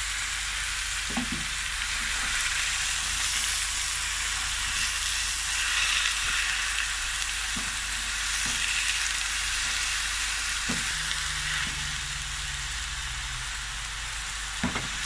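Sweet potato leaves sizzling in hot oil in a pan on high heat, stir-fried with a wooden spatula that knocks softly against the pan a few times.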